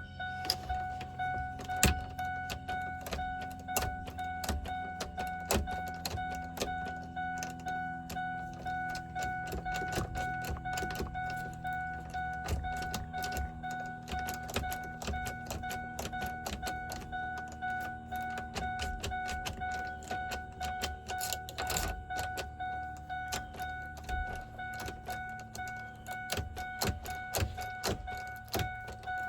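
A key being worked and jiggled in a truck's ignition: many quick, irregular clicks and rattles over a steady high electronic tone.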